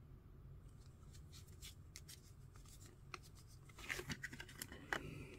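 Hard plastic trading-card case being handled: light clicks and scrapes of plastic, with a cluster of sharper clicks about four seconds in.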